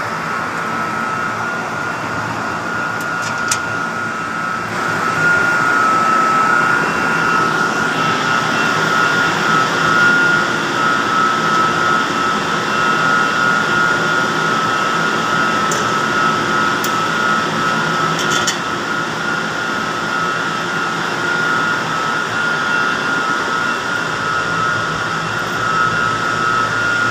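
Diesel generator running steadily, with a constant high-pitched whine over the engine's drone; the level rises a little about five seconds in.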